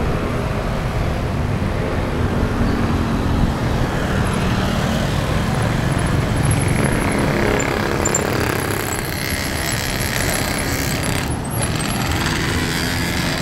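Road traffic with passing motorcycle and car engines, heard from a moving bicycle with wind rushing over the handlebar camera's microphone.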